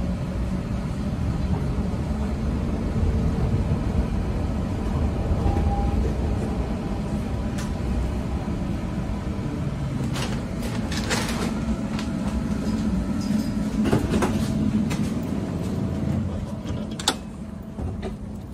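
Electric tram running, heard from inside the car: a steady low rumble with a faint motor hum. A few sharp knocks and clicks come from about ten seconds in, and the rumble drops away near the end.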